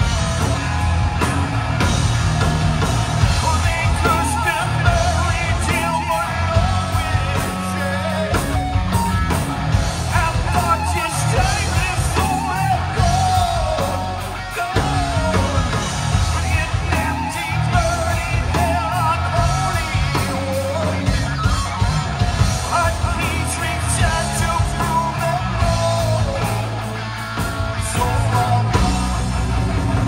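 Live rock band playing: a singer over distorted electric guitar, bass guitar and drums.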